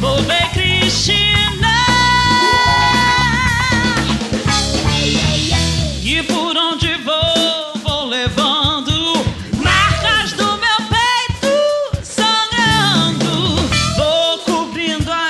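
Band music with drum kit and a singing voice. The bass drops out about six seconds in and comes back near the end, while a wavering melodic line carries on over sparse drum hits.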